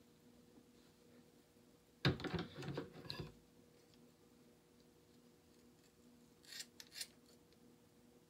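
Scissors cutting through thick dreadlocks: a crunching cut lasting about a second, two seconds in, and a few short sharp snips near the end, over a faint steady hum.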